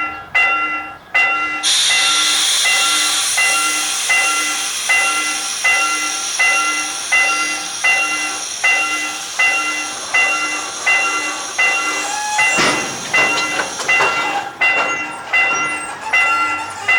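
Railroad level-crossing warning bell ringing steadily, about one and a half strokes a second. About two seconds in a loud hiss from a train at the crossing comes in over it and fades away over about ten seconds.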